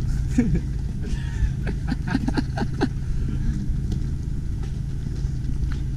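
A motor vehicle engine idling, a steady low hum, with a few brief knocks and short voice sounds about two to three seconds in.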